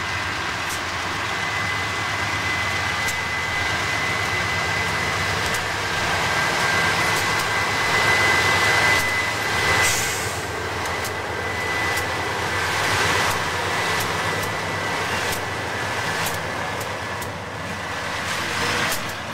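Train running past close by: a steady rumble and rail noise with scattered clicks of wheels over the rails and a thin, steady high-pitched whine, loudest around the middle.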